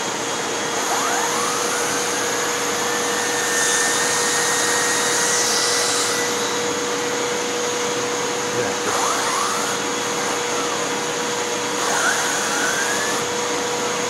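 Hoover WindTunnel 2 upright vacuum running steadily at full suction through its stretch hose, with the hand turbo tool being worked over a fabric cushion. A thin whine rises and falls in pitch several times as the tool's turbine spins up and slows; it fails to keep spinning on the upholstery and just stops.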